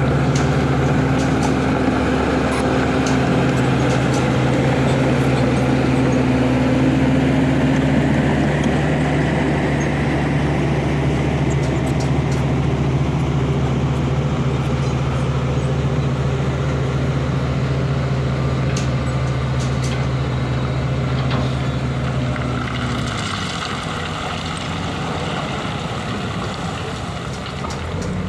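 Diesel engine of heavy road-construction machinery running steadily, with scattered short clanks. About 23 seconds in, the deep engine note drops away and a lighter engine sound is left.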